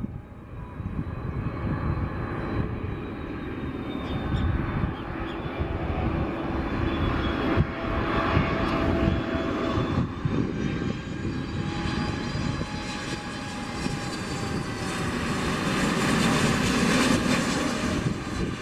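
Jet engines of an Airbus A321neo running as the airliner passes, a steady rush of noise with high whining tones that slowly shift in pitch, growing louder in the last few seconds.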